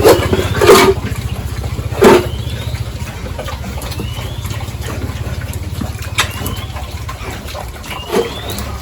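A small engine running steadily, with a few loud short sounds near the start and about two seconds in, and faint short rising chirps later on.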